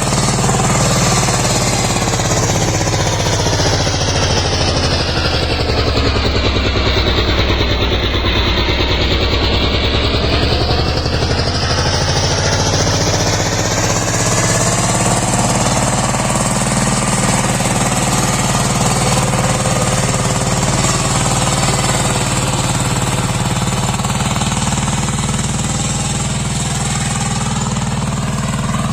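Kirloskar power tiller's single-cylinder diesel engine running under load while ploughing, a steady fast chugging that keeps on without a break.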